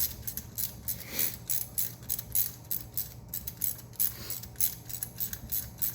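Hand ratchet wrench clicking rapidly as it is swung back and forth on a bolt, about five clicks a second.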